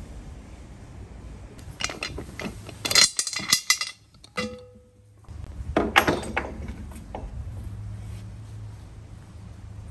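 Sharp metallic clinks and knocks of pliers and fittings on an aluminium pressure-cooker lid, in two clusters with a short ringing note between them.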